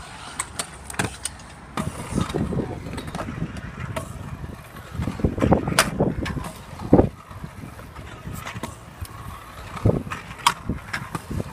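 Stunt scooter wheels rolling on a concrete skatepark ramp, with sharp clacks and knocks as the scooter strikes the concrete. The loudest knock comes about seven seconds in.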